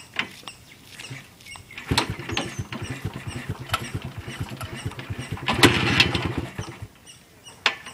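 Jawa 250's two-stroke single-cylinder engine being kick-started: it catches about two seconds in and runs with a rapid, uneven putter, swells louder briefly, then dies out. A single click follows near the end.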